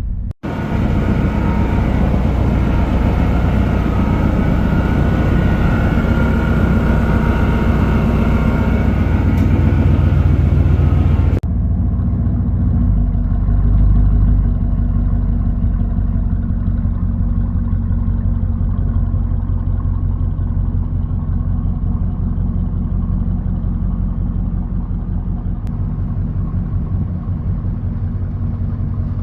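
Freshly rebuilt Chevy 350 small-block V8, with new rings and bearings, running steadily after an easy start. The sound changes abruptly about eleven seconds in, where the high hiss drops away.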